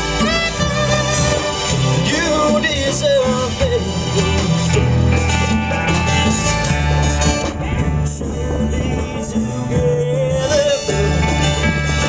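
Live band playing: a saxophone melody that bends in pitch over held electric bass notes, with guitar and percussion.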